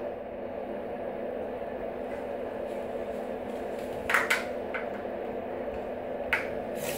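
Plastic toy pieces clacking as a toddler handles a toy train track: two short clacks about four seconds in and another near the end, over a steady low room hum.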